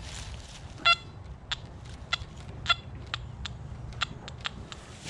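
Short electronic chirps from a metal detector's target signal, sounding several times as the dug plug and hole are checked for the buried target, with a few sharp ticks between them over a low steady rumble.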